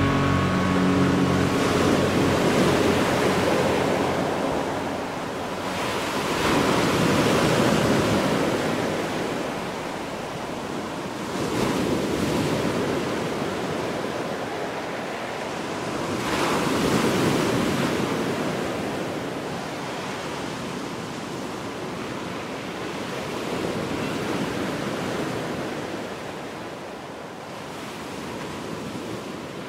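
Sea waves breaking and washing over a rocky, stony shore, the surf swelling and ebbing in surges about every five seconds. The sound slowly fades toward the end.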